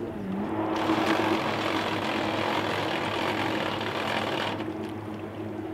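Boat engine idling with a steady low hum. A rushing hiss rises over it from about a second in and stops about four and a half seconds in.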